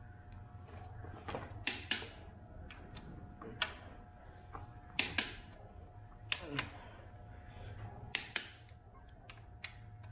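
Click-type torque wrench clicking as it reaches its set torque of 75 ft-lb: a series of sharp clicks, several in quick pairs about a fifth of a second apart, over a faint steady hum.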